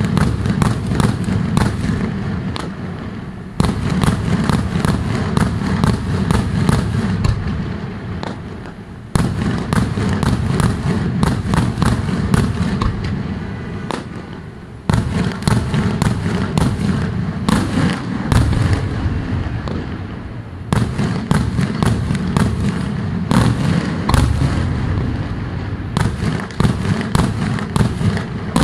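Daytime fireworks display by Senatore Fireworks: rapid, dense volleys of cracking reports and deep booms from aerial shells bursting overhead. The volleys come in waves, each starting suddenly about every five to six seconds and thinning out before the next.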